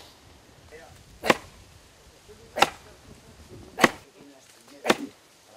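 Four axe blows biting into a live oak limb, a little over a second apart, each a sharp chop. The limb is being cut from its other side so that it does not split as it comes down.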